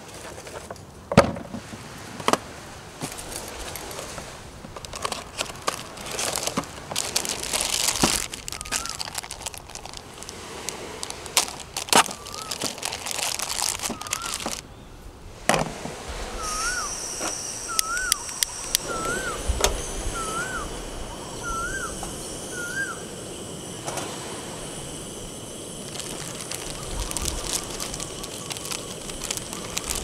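Plastic bag crinkling and rustling as food is handled, with a couple of sharp knocks near the start. Later, a bird calls in the background with a short chirp about once a second, six times.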